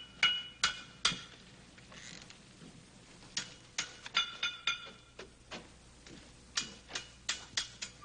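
A blacksmith's hammer striking metal: irregular sharp clinks, several of them ringing briefly. There is a pause of about two seconds after the first few strikes, then a run of quicker strikes.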